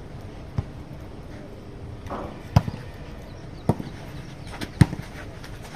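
Four sharp, short knocks or smacks at uneven intervals over a low steady background; the second and fourth are the loudest.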